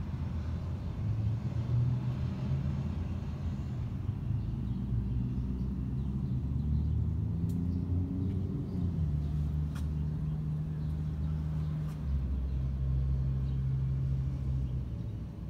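A vehicle engine running with a low, steady hum. Its pitch rises about seven to nine seconds in, then holds with a brief dip near twelve seconds.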